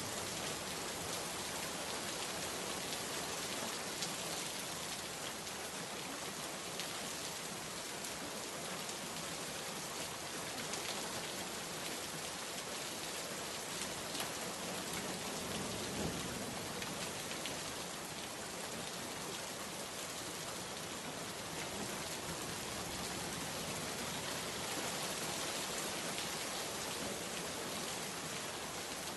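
Steady rain falling on a surface, an even patter throughout, with a brief low swell about halfway through.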